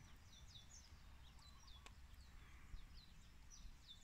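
Faint outdoor quiet with distant birds chirping in quick, high, repeated notes over a low rumble. There is one small click just before halfway.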